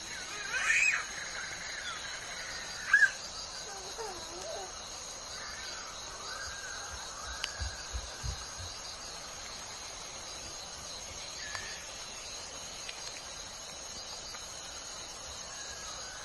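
Steady high chirring of crickets or similar insects, with several short bird calls over it, the loudest about one and three seconds in, and a few soft low thumps about eight seconds in.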